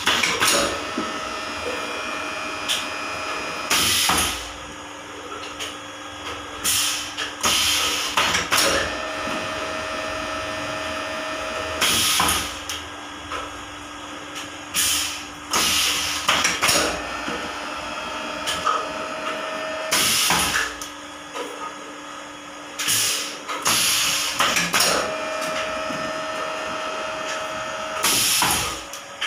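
HDPE bottle blow-moulding machine running through its cycles: sharp blasts of compressed-air hiss from its pneumatic clamp and blow air come every few seconds, some in quick clusters, over a steady motor hum.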